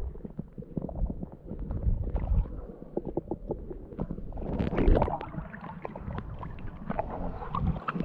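Muffled underwater rumble and sloshing heard through a camera held below the surface, with scattered small knocks and a louder swirl of water about five seconds in.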